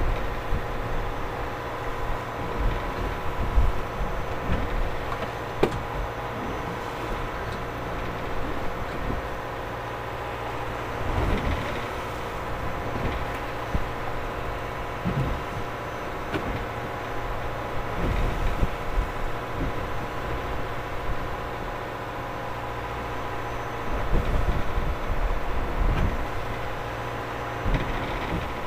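Fishing boat's engine running with a steady drone and hum, with scattered knocks and thuds from gear on deck as a crewman works a fishing line.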